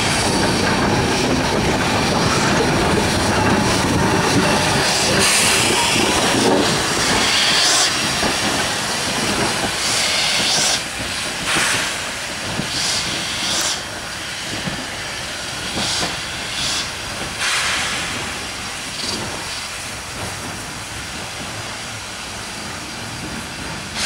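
Steam locomotive moving slowly, wheels and running gear rumbling on the rails, with repeated bursts of steam hiss. The rumble fades about halfway through, leaving separate hisses of steam every few seconds.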